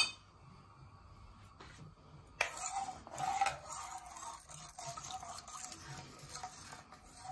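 A steel spoon stirring hot water in a non-stick kadai, scraping and knocking against the pan, starting about two and a half seconds in and loudest in the first second of stirring. A sharp click at the very start.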